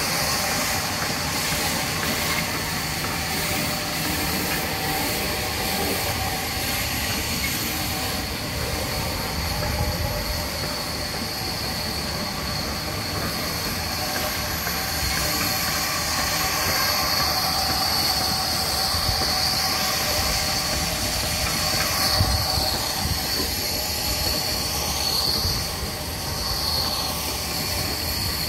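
Sawmill band saw running, its blade giving a steady high squeal over a constant machine noise, the squeal wavering in pitch near the end.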